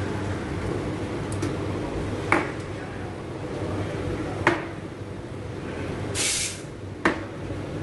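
Three sharp knocks as a stainless steel milk pitcher is handled and set on the counter, and a short burst of hiss about six seconds in, a steam wand being purged, over the steady hum of an espresso machine.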